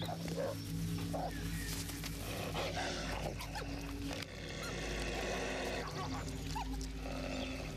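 Wolves vocalising in a confrontation within the pack, with short calls early on giving way to a rougher, noisier stretch, over steady background music.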